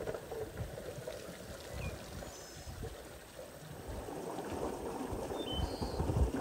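Spring water gushing from a spout and splashing into a stone basin, with chopped watermelon rind tumbling out of an enamel bowl into a stainless steel colander. The splashing thickens about four seconds in.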